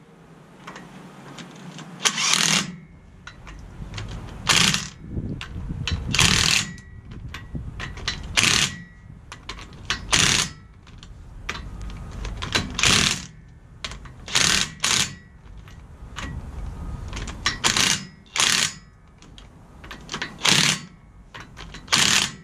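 Cordless impact wrench rattling in about a dozen short bursts, one every second or two, as it runs the nuts on a truck's rear wheel hub.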